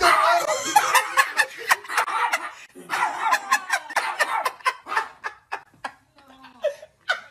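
People laughing hard in repeated bursts, with some talking, over a small dog's vocalizing; the laughter thins out after about five seconds.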